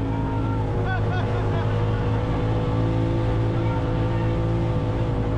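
Honda side-by-side UTV engine running at a steady pitch while the vehicle drives through shallow water, with water spray hissing around it.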